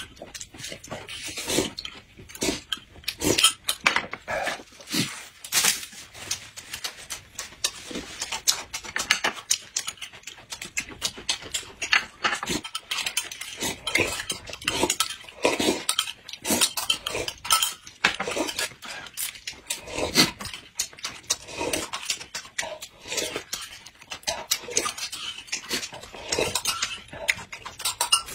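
Close-miked eating sounds: people slurping and chewing food spooned from glass cups, with metal spoons clicking against the glass, in many short, irregular strokes.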